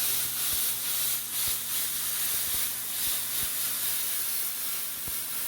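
Plasma cutter cutting steel sheet: a steady hiss of the cutting jet with a low hum under it.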